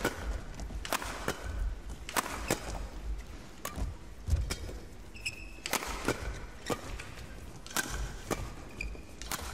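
Badminton rackets hitting a shuttlecock in a fast doubles rally: sharp cracks about once or twice a second at an uneven pace, over a low crowd murmur.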